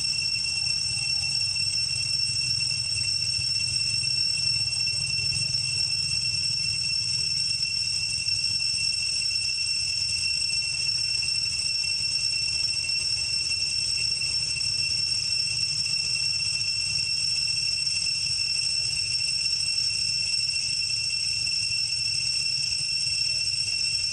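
Steady, unbroken high-pitched insect drone, typical of cicadas calling in the trees, over a low rumble.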